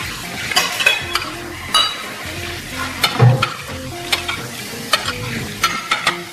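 Stainless fork and spoon scraping and clinking against a ceramic plate as rice and sauce are pushed together, with irregular sharp clinks, the loudest about three seconds in.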